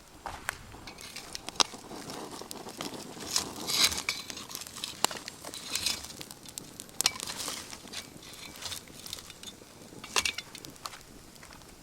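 Campfire burning, the wood crackling with irregular sharp pops and snaps over a soft hiss, with short flurries of crackling about four, seven and ten seconds in.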